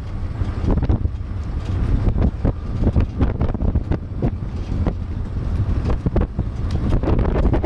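Wind buffeting the microphone of a camera mounted on a moving vehicle's roof: a heavy low rumble with irregular gusts, over the vehicle's running noise.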